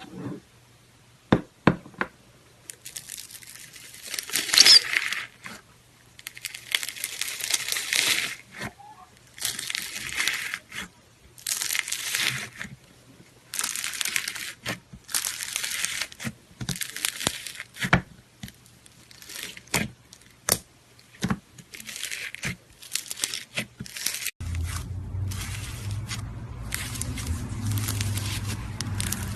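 Slime being worked by hand: a series of crackly, tearing noise bursts, each lasting up to about a second and a half, with sharp pops and clicks between them. A low hum joins in near the end.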